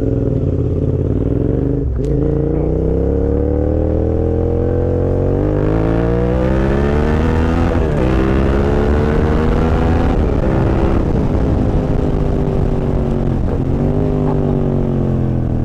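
Suzuki SV650 V-twin engine with a full aftermarket exhaust, heard from the pillion seat, pulling hard: the revs climb, break and climb again at gear changes about two and eight seconds in. In the second half the revs fall away as the bike slows.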